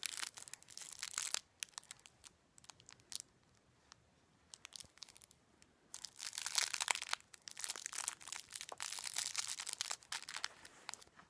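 Crinkling and crackling handling noise, full of small sharp clicks, in two spells: the first second and a half, then from about six seconds in to near the end, with a quiet stretch between.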